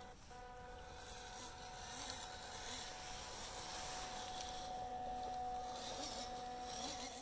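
Electric motor and gears of a 1/10-scale WPL D-42 RC van whining steadily as it drives through shallow water, a little louder about halfway through, over the hiss of running water.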